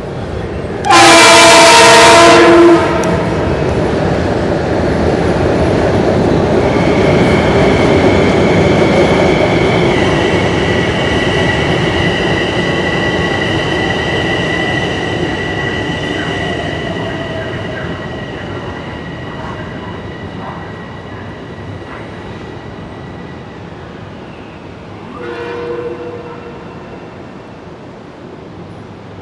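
Metro-North commuter train sounding its horn in one long, very loud blast about a second in, then running past with a rumble that swells and slowly fades, carrying a steady high whine. A second short horn blast comes near the end.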